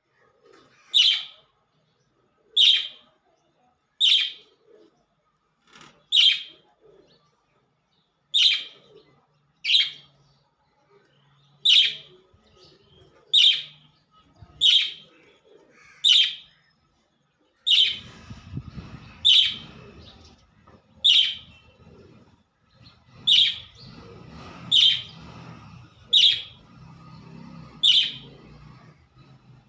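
Pet budgerigar calling with a short, loud chirp about every second and a half, over and over. A low background rumble joins about two-thirds of the way in.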